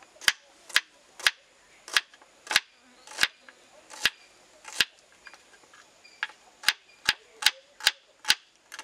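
Kitchen knife cutting red onion into wedges, the blade striking a wooden cutting board in sharp knocks. About fifteen strokes, one or two a second, with a short pause midway and quicker strokes near the end.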